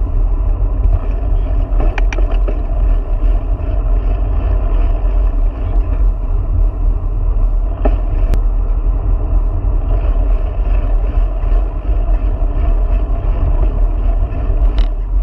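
Wind buffeting the microphone of a camera riding on a moving bicycle, a loud steady rumble mixed with tyre noise on pavement, with a few brief clicks.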